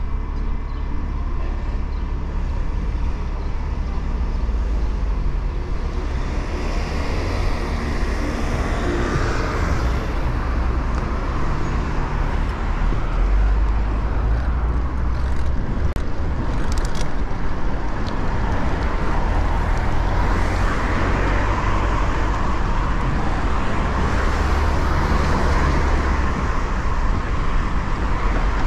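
Road traffic heard from a moving bicycle: a steady hiss of traffic that swells and fades a few times as vehicles pass, over a constant low rumble of wind on the microphone.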